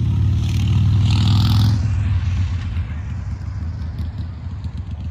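A motor vehicle's engine running close by, swelling to its loudest about a second in and then easing off, as a vehicle passing would.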